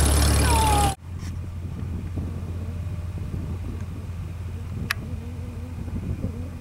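Cessna 162 Skycatcher's Continental O-200 four-cylinder engine running loud at close range while taxiing, with a brief falling squeal, then breaking off suddenly about a second in to a much quieter, steady engine drone from the plane far across the airfield. A single sharp click near five seconds.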